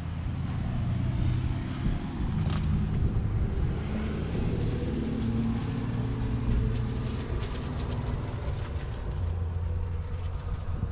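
An engine running steadily at low revs with a low hum; its pitch rises slightly a few seconds in and settles again. Light clicks and rustles sit over it.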